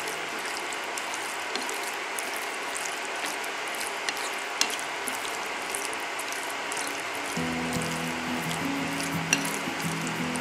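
Wooden chopsticks tossing cabbage and spring onions in a glass bowl: a steady crackly rustle with many small clicks of chopstick on glass. Background music with low held notes comes in about seven seconds in.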